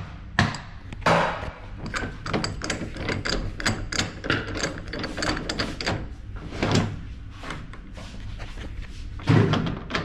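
Metal hose fittings and hand tools being handled: a run of clinks and knocks, with several louder knocks, over a steady low hum.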